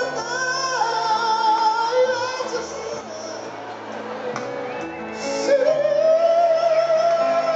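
Live acoustic music: long sung notes with vibrato held over piano and double bass accompaniment.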